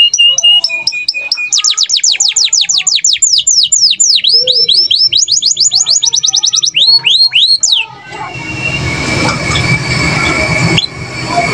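Domestic canary singing loud, fast trills: runs of rapid repeated notes sweeping down, a short steady whistle near the start, and slower swooping notes. About eight seconds in, the song stops abruptly and a dense noisy sound with a low rumble and a steady thin tone takes over.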